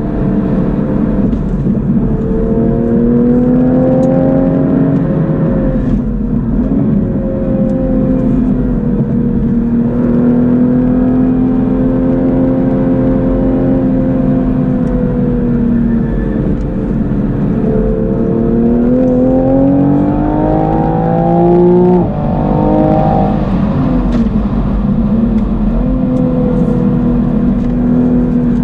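Toyota Supra's turbocharged 3.0-litre inline-six engine being driven, its note rising and falling with the throttle. Near the end of the second third the revs climb steadily, then drop sharply as the 8-speed automatic upshifts, and the note falls away again as the car slows.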